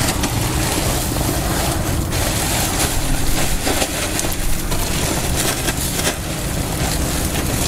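Shredded cypress mulch pouring out of a plastic bag onto bare ground, a dense dry rustling and pattering with the crinkle of the bag. It grows busier after a couple of seconds, over a steady low rumble.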